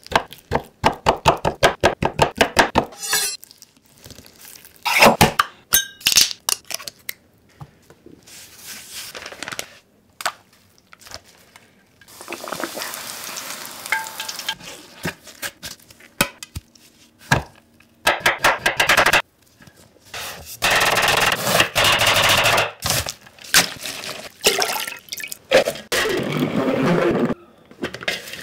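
A run of close-up kitchen preparation sounds. It starts with a quick series of sharp taps of a fork pricking a raw chicken breast on a wooden board. Then come long stretches of even sizzling from breaded cutlets frying in oil, and clicks and rustles of shredded cabbage being handled and put into a plastic salad spinner.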